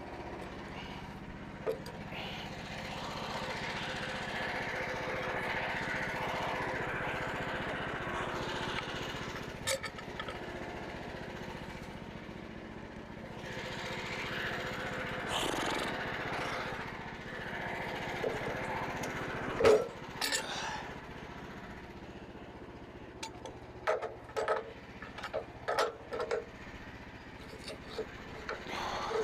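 Frontier OS27 portable bandsaw mill running with its small engine humming steadily, the band blade cutting through a maple log in two long swells of noise. In the last third come a series of short, sharp knocks.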